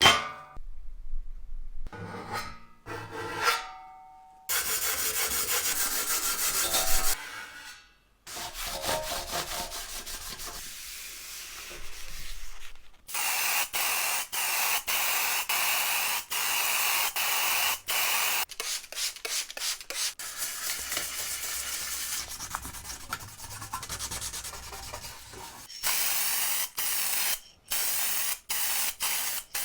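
Sanding and rubbing on the toy's parts in a series of short cuts, with a few knocks and clatters near the start and a steady high whine partway through.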